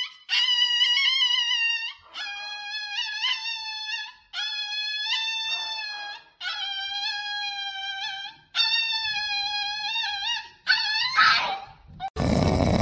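Small poodle howling in a run of long, high-pitched, drawn-out cries, each about two seconds long with a slight waver, as its nails are clipped. Near the end a puppy's snoring starts.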